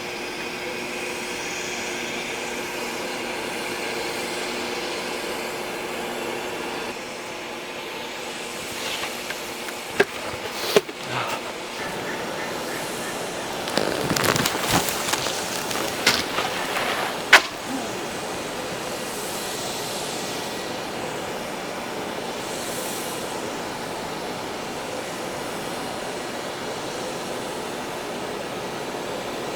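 Snowboard knocking and scraping: two sharp knocks about ten seconds in, then a few seconds of scraping and rattling ending in a sharp clack, over a steady background rumble.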